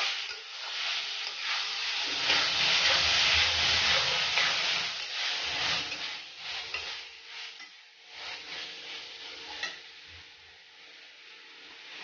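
Steel spatula stirring and scraping a sizzling vegetable and tomato-sauce mixture in a steel kadhai, with many quick strokes, loudest in the first half and easing off after about six seconds. A single sharp clink comes about ten seconds in.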